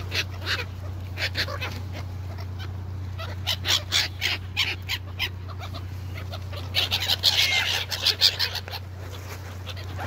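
Gulls squawking in short bursts of calls, busiest in the second half, over a steady low hum.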